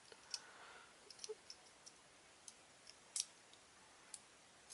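Faint, scattered clicks of a Beyblade top's plastic clear wheel and metal wheel being turned and handled in the fingers. The sharpest click comes a little after three seconds in.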